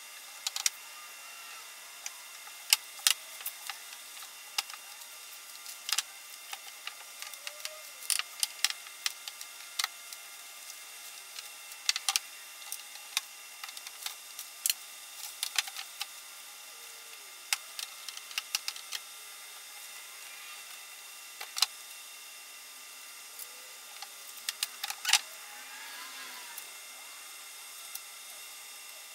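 Irregular light clicks and knocks of a plastic pipe frame and latex sheeting being handled on a wooden workbench, over a steady hiss, with a few faint squeaks near the end.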